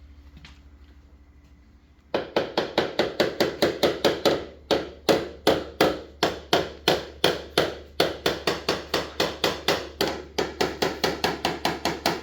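Rapid, even hammer taps, about four a second, starting about two seconds in: dent-repair tapping on a car body panel.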